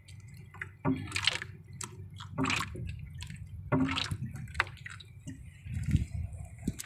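Water splashing and dripping in irregular short bursts, several in a few seconds.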